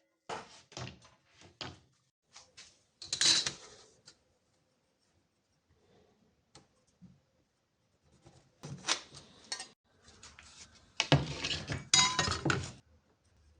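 Hard objects clinking, knocking and clattering as they are handled and set down, in scattered bursts with quiet gaps. The loudest bursts come about three seconds in and near the end, the last ones with a short metallic ring.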